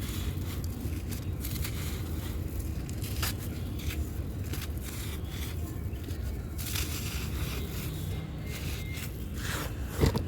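A dry, crumbly yellow block being crushed and broken apart, giving irregular crisp crunches and scraping crackles. One sharper, louder crunch comes near the end.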